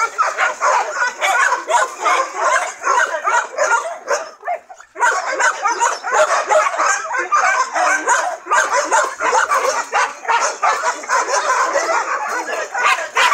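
Several dogs barking and yipping rapidly and without let-up, the calls overlapping, with a short lull about four seconds in.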